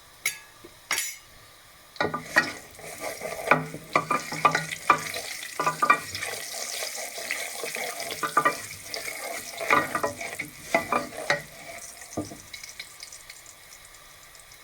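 Mustard seeds and urad dal sizzling in hot oil in a pan, with many sharp crackles as the seeds pop. A couple of isolated pops come first, then dense crackling from about two seconds in that thins out near the end.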